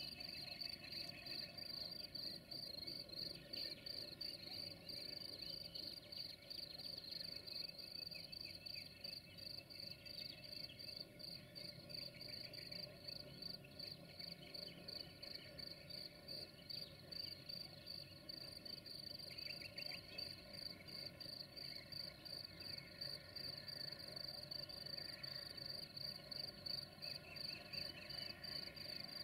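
Crickets chirping: a steady, high, evenly pulsing trill.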